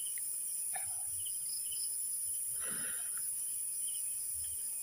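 Steady, high-pitched chorus of night insects. Twice there is a brief scrape and rustle of a cardboard matchbox being handled and slid shut, the second one about three seconds in.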